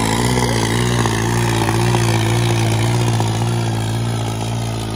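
New Holland 3630 tractor's three-cylinder diesel engine running hard under heavy load, dragging a disc harrow through ploughed soil. The engine note holds steady and eases slightly near the end.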